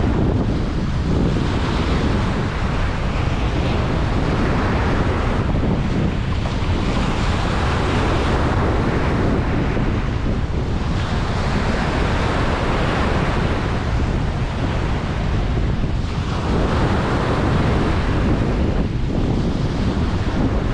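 Ocean waves breaking and washing up a beach, the surf swelling every few seconds over a steady low rumble, with wind buffeting the microphone.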